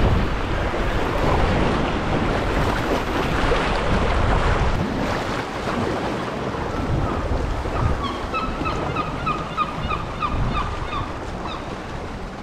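Sea water sloshing and wind buffeting the microphone as a sea kayak is paddled through choppy water. About eight seconds in, a seabird gives a quick run of about a dozen short calls, roughly three or four a second.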